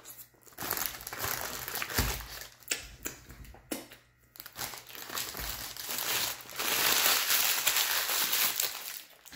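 Paper sandwich wrapper being crinkled and crumpled by hand in irregular rustles, longest and loudest toward the end.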